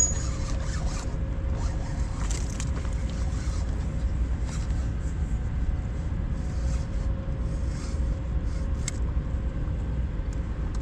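Spinning fishing reel being cranked, with scattered short clicks over a steady low rumble. The angler calls the reel garbage, with its anti-reverse shot.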